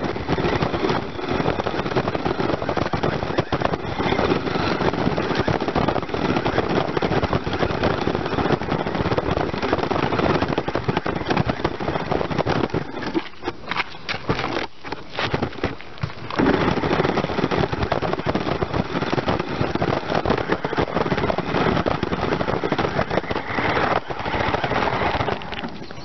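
Onboard sound of a remote-control car driving over a dirt and gravel path: a dense crackling rattle of wheels and chassis jolting over the stones, easing off for a few seconds about halfway through.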